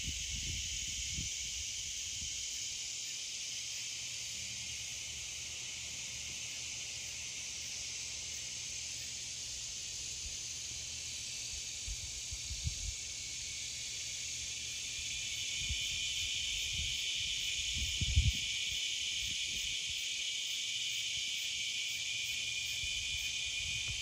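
A chorus of cicadas and tree frogs at twilight: a steady, dense, high-pitched drone that swells a little past the middle. A few brief low bumps come near the start, about halfway, and again later.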